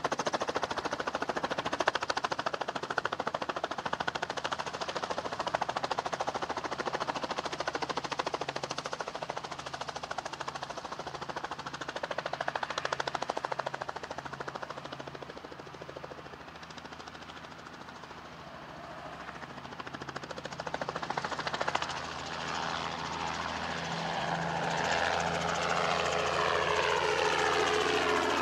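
Small tour helicopter's engine and rotor running, first at a distance on its pad. It grows louder as it lifts off and comes close overhead, and its pitch falls in the last few seconds as it passes.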